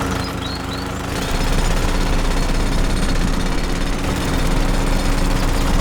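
Small motor of a miniature DIY construction machine running with a rapid, rattling hammering over a steady hum; it gets a little louder about a second and a half in.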